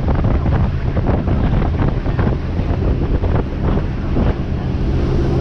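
Wind buffeting the microphone on a boat at sea, loud and gusty, over a steady low hum.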